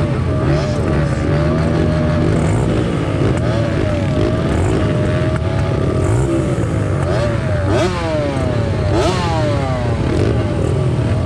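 Several petrol pit bike engines idling and being revved nearby, their pitch rising and falling, with a few quick sharp rev blips toward the end.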